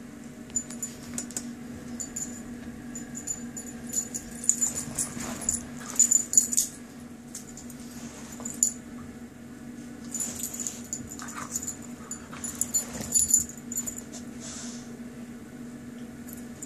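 Dogs at play, their metal chain collar and tags jingling in short clusters of bright clicks as they move, with dog sounds mixed in. The jingling is loudest about six seconds in and again near thirteen seconds.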